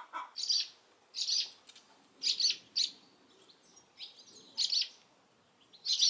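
Swallows chirping at their nest: a series of short, high chirps about every second, with brief pauses between them.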